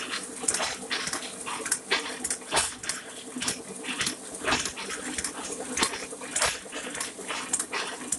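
Ryobi 3200CD offset printing press running: a steady hum under an uneven series of sharp clacks and squeaks, one or two a second.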